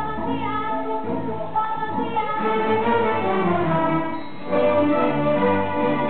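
A children's string orchestra, mostly violins, playing held, bowed notes. The music drops briefly just past four seconds in, then comes back louder.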